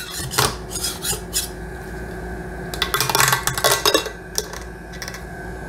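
Metal scraper prying a large resin print off a 3D printer's metal build plate: scraping, with sharp clicks and snaps as the resin supports pop loose, in bursts about a second in and again around three to four seconds in. A faint steady hum underneath.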